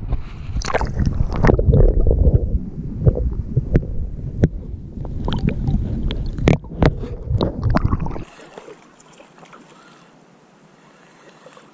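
Muffled water sloshing and bubbling around a submerged camera, with a dense low rumble and many sharp clicks and knocks, as a bass is released by hand. After about eight seconds it cuts abruptly to faint water and wind.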